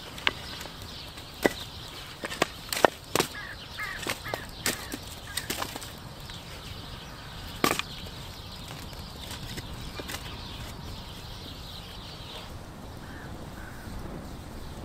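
Split firewood logs set onto a campfire by hand, wood clacking on wood in sharp knocks: several in the first few seconds, a loud one about halfway through, then quieter.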